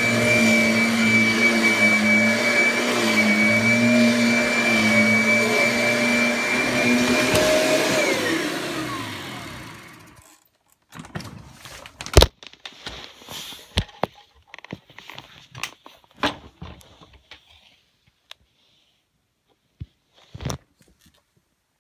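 Kirby Sentria upright vacuum cleaner running steadily with a high motor whine, switched off about seven and a half seconds in, its pitch falling as the motor spins down over a couple of seconds. Then scattered clicks and knocks of the machine being handled.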